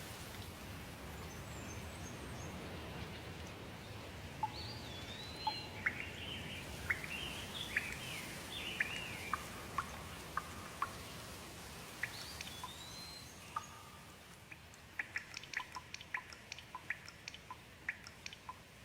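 Steady rain hiss with birds chirping over it: a run of quick whistled notes with rising and falling sweeps. Near the end the rain eases and a scatter of short, sharp ticks takes over.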